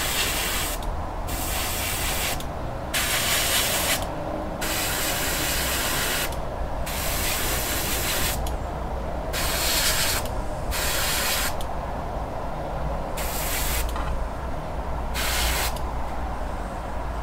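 Airbrush spraying black paint in short bursts of hiss about a second long, about nine times, as the trigger is pressed and released. A steady low hum runs underneath.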